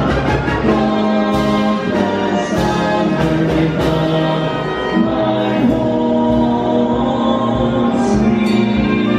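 A group of voices singing a slow song in long held notes, with a brass band accompanying.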